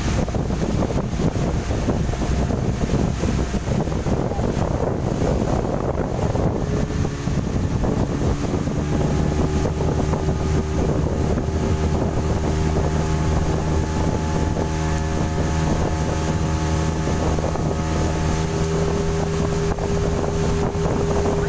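Speedboat's outboard motor running steadily at cruising speed, with water rushing past the hull and wind on the microphone. The engine's steady hum comes through more clearly after about eight seconds.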